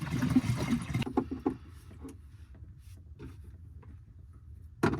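Fuel being poured from a canister into a camper's parking-heater tank, a steady pouring hiss that stops about a second in, followed by a few soft knocks and a click near the end.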